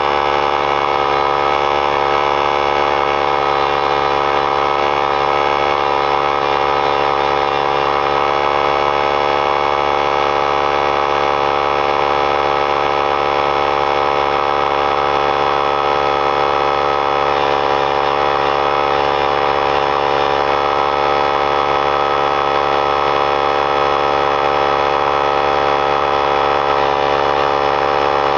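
3-gallon oilless pancake air compressor running steadily as it fills its tank: a loud, even drone that does not change.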